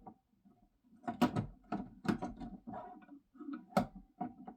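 Sharp clicks and knocks with light scraping between them, from tools and hands working on the casing of an under-sink boiling-water boiler during disassembly; the loudest knocks come about a second in and again near the end.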